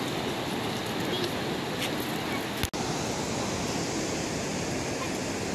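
Steady wind on the microphone mixed with surf washing onto a shingle beach. The sound cuts out for an instant about halfway through.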